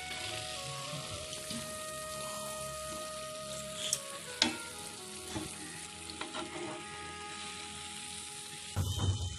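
Steady sizzling hiss of hot, freshly fried jalebis soaking in hot jaggery syrup in a pan. A wooden spatula knocks against the pan twice around the middle and scrapes it near the end.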